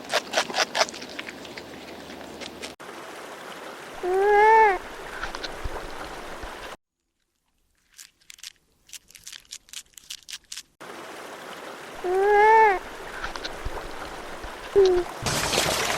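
An animal's short whining call, rising then falling in pitch, given twice about eight seconds apart over a trickle of running water. Bursts of rapid clicking come in between, and a loud splash-like rush comes near the end.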